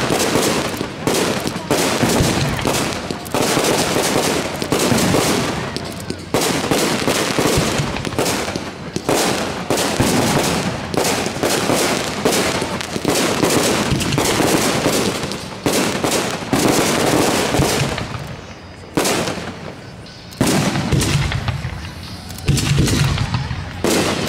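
Aerial fireworks display: shells bursting one after another with dense, rapid crackling, nearly continuous. There is a brief lull about eighteen seconds in before the bursts and crackles pick up again.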